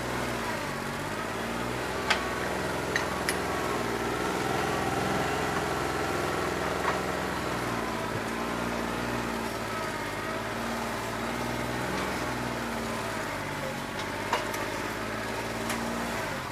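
New Holland 1320 compact tractor's diesel engine running, its pitch rising and falling a little, with a few sharp clicks on top. A bad injector has it running rough on about two and a half cylinders.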